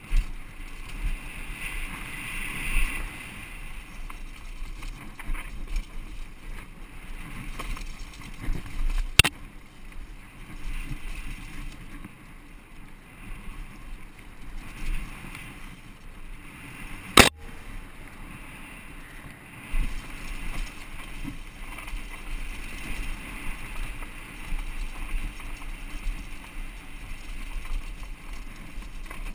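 Giant Glory downhill mountain bike descending a rough dirt trail: a continuous rush of wind on the microphone and uneven rattling of the bike over the bumps. Two sharp knocks stand out, about nine and about seventeen seconds in, the second the loudest.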